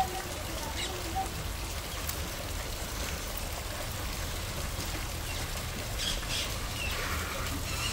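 Steady rain falling into puddles and mud, an even hiss.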